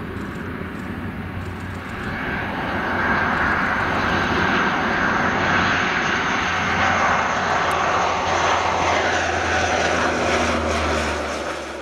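Antonov An-12's four Ivchenko AI-20 turboprop engines running, a steady drone that grows louder about two to three seconds in.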